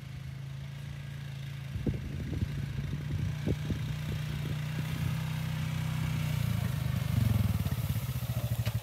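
Honda 420cc single-cylinder ATV engine running as the four-wheeler drives across rough pasture toward the listener, growing steadily louder as it approaches. A few sharp knocks come two to four seconds in, and near the end the engine slows to a pulsing idle as the quad pulls up.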